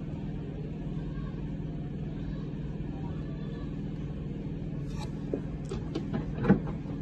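Steady low background hum, with a sharp click about five seconds in.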